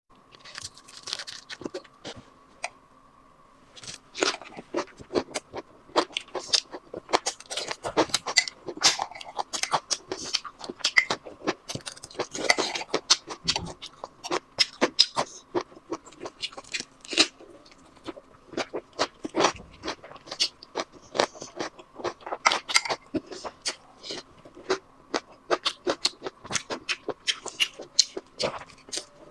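Close-miked chewing and lip-smacking from eating rice-paper rolls: many short, wet clicks and smacks in an irregular rhythm, over a faint steady hum.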